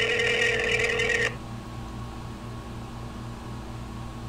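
Telephone ringing: one ring that stops about a second in, followed by a faint steady hum, with rings coming about two seconds on and three and a half off.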